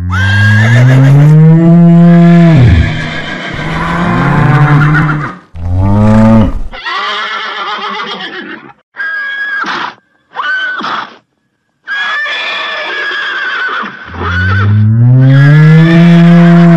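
Cow mooing in long, loud, low calls, one at the start and another near the end, with shorter, higher horse whinnies cut in between them.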